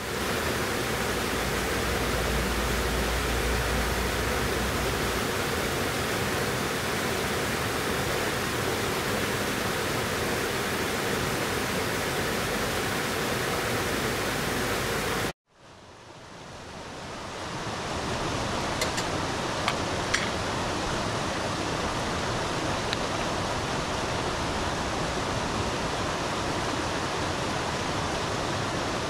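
A mountain river rushing steadily. The sound cuts out briefly about halfway, fades back in, and a few faint clicks sit over it soon after.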